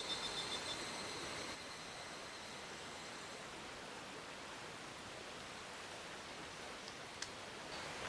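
Steady hiss of running water and rain, with a high pulsing trill fading out in the first second or so.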